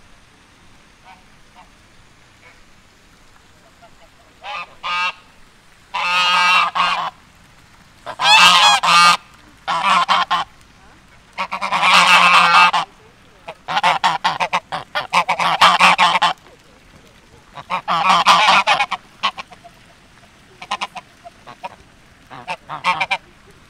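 Geese honking loudly in a string of repeated calls, a few short bursts and some longer ones in the middle, tailing off into scattered shorter honks near the end.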